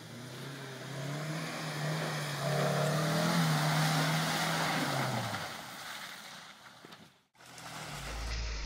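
UAZ Pickup 4x4's engine driving past: the note grows louder and rises a little, then drops in pitch and fades over about five seconds, and breaks off abruptly with a cut to a low rumble.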